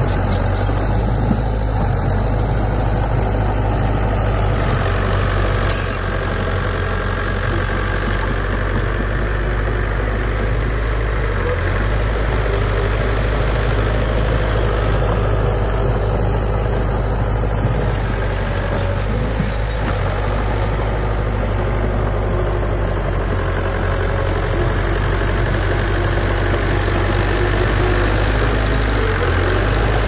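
Komatsu D31P crawler bulldozer's diesel engine running steadily, a low even drone.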